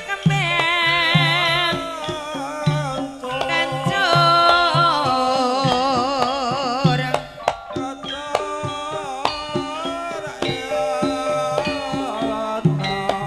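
Javanese gamelan music: a singer holds long, wavering notes over sustained metallophone tones and steady hand-drum (kendang) strokes.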